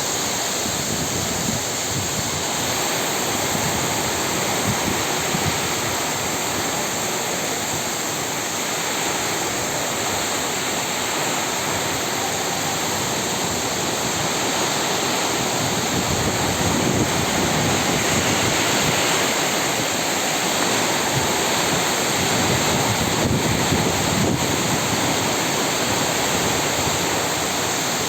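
Heavy rain pouring in a storm with strong gusting wind, a steady loud rushing hiss, with the wind buffeting the microphone in low rumbles.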